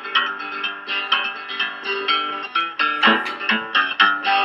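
Background music: a guitar picking a steady folk accompaniment, with no singing.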